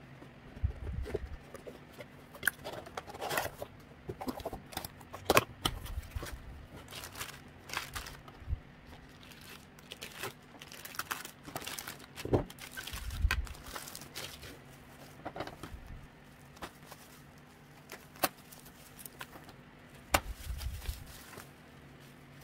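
Hands handling and opening a taped cardboard shipping box: irregular scrapes, taps and rustles of cardboard and packing tape, with a few low thumps.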